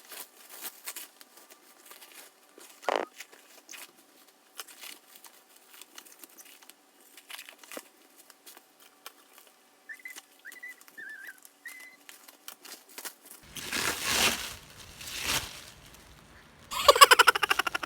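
Plastic packaging being unwrapped by hand: scattered crinkling and rustling, then louder tearing about two seconds before the end, and a loud rasping rip near the end, like tape being pulled off.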